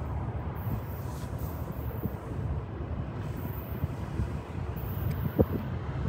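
Steady low wind rumble on the microphone, with a CN freight train approaching faintly in the distance beneath it. One short knock about five and a half seconds in.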